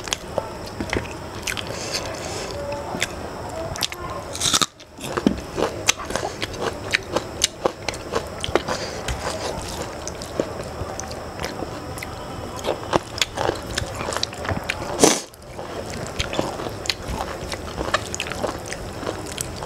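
Close-miked eating by hand: a person chewing mouthfuls of rice and curry, with many small wet clicks and smacks, and fingers mixing rice and curry on a steel plate. Twice a louder sharp sound is followed by a brief drop-out.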